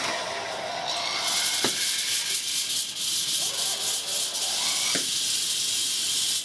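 Compressed air hissing steadily out of a pneumatic Halloween prop's nozzle, starting about a second in, with a couple of sharp clicks along the way.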